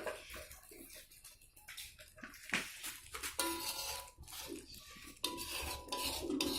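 A utensil stirring and scraping a thickening bait mixture in a cooking pot, with irregular knocks against the pot and two sharper clacks, about two and a half and five seconds in.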